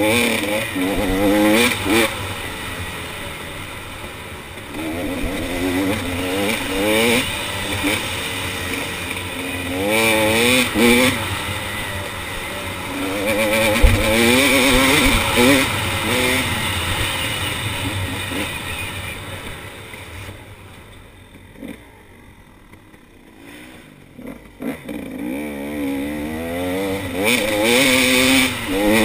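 KTM 300 XC two-stroke dirt bike engine pulling hard, its pitch rising in run after run as the rider accelerates and shifts up. Past the middle it backs off and runs quietly for a few seconds before climbing again near the end, with a single thump about halfway through.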